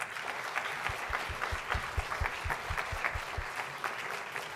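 Audience applauding, starting all at once and holding steady. A run of low thumps, about five a second, sounds from about one second in to about three and a half seconds.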